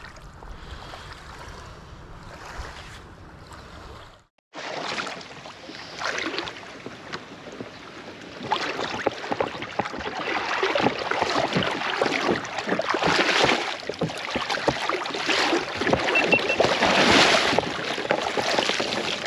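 Water sloshing and splashing around a fishing kayak as it is waded off the shallows and boarded, uneven and growing louder through the second half. Before that there is softer water noise and a brief dropout about four seconds in.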